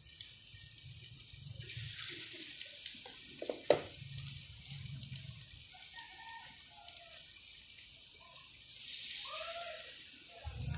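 Balls of glutinous rice dough frying in shallow oil in a pan, a steady sizzle with a few small crackles and one sharper knock about three and a half seconds in.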